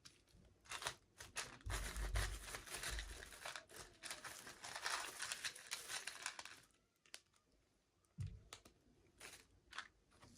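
Plastic toy packaging crinkling and tearing as it is opened by hand for about six seconds, followed by a few handling clicks and a low thump near the end.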